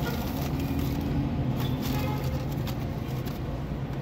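Car engine and road noise heard from inside the cabin while driving slowly in city traffic: a steady low hum.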